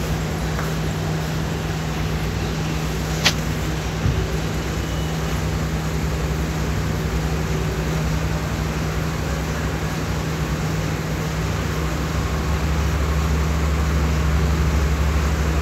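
Steady background rumble with a constant low hum. A single sharp click comes about three seconds in, and the low rumble swells somewhat near the end.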